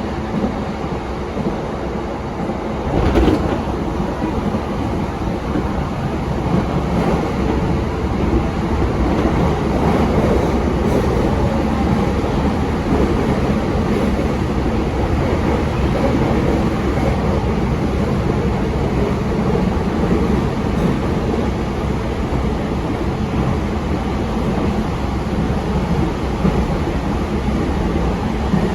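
E233-7000 series electric train running at speed, a steady rumble of wheels on rail, with a single sharp knock about three seconds in.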